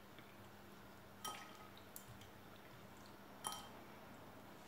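Two faint clinks of a glass bowl, about two seconds apart, each ringing briefly, as drained sour cherries are picked out of it by hand into a baking tin.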